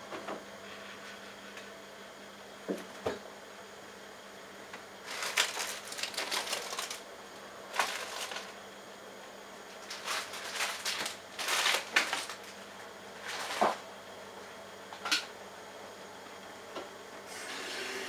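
Bosch Logixx front-loading washing machine tumbling its drum during a rinse, water splashing and sloshing in irregular bursts over a steady low running sound, with a couple of sharp knocks.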